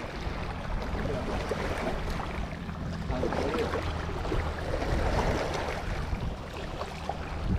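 Wind on the microphone over small waves washing against shoreline rocks, a steady noise.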